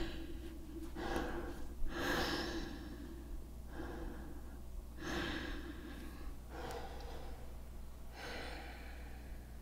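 A woman breathing audibly in and out, about six breaths, each less than a second long, over a faint low steady hum.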